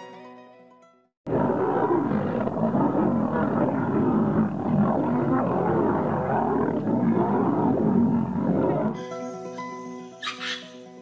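A pride of lions growling and roaring as they fight: a dense, continuous clamour that starts abruptly about a second in and lasts around eight seconds. Background music fades before it and returns after it.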